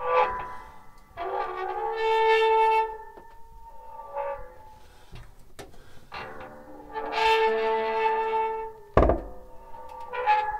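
Heat press's metal pivots squeaking and creaking as the press is worked: two long, drawn-out pitched creaks of a second or two each, with shorter squeaks between them. A sharp thunk comes about nine seconds in.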